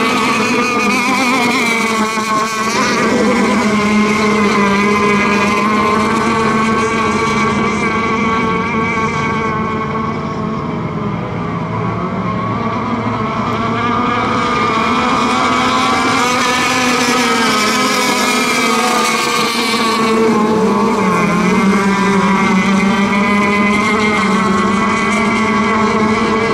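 Radio-controlled racing boats' small gas two-stroke engines running flat out at high revs, one continuous high-pitched drone whose pitch wavers as the boats pass and turn, dipping briefly about three-quarters through.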